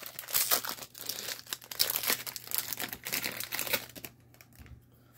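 The plastic foil wrapper of a trading card pack crinkling and tearing as it is opened by hand, for about four seconds, then stopping.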